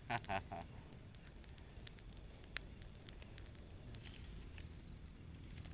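Campfire crackling: scattered sharp pops over a steady hiss. A brief vocal sound at the very start.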